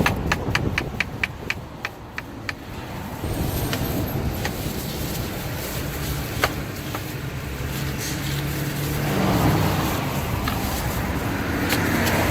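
A knife chopping rapidly against a cutting board, about a dozen quick, evenly spaced strokes over the first couple of seconds. After that comes a steady low rumble of street or vehicle noise with a low hum.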